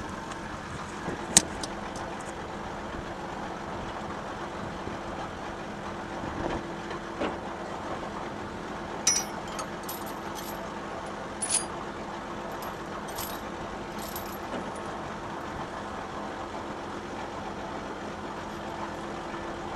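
Tractor diesel engine idling steadily, with steel tow-chain links clinking and rattling several times as the chain is handled; the sharpest clink comes about a second in, and a cluster follows about halfway through.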